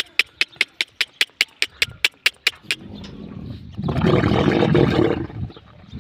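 Bull dromedary camel giving a loud gurgling roar, strongest from about four to five seconds in, with its pink palate sac (dulla) pushed out of its mouth: the threat display of a bull in rut. Before it comes a quick run of sharp clicks, about five a second, that stops a little before three seconds in.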